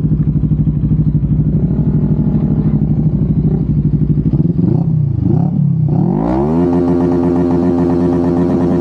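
Motorcycle engine running at low revs with a fast pulsing beat, then picking up revs about six seconds in and holding a higher steady pitch.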